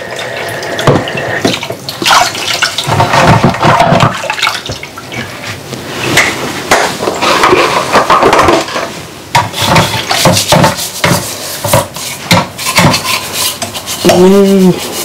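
Dishes and cutlery clinking and clattering in a kitchen sink, with tap water running, during hand washing-up. A person's voice is heard briefly near the end.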